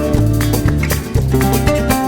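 Background music led by a plucked acoustic guitar, with a steady rhythm.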